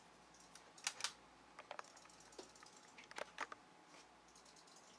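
Faint room quiet broken by about seven soft, scattered clicks and taps, most of them in the first three and a half seconds.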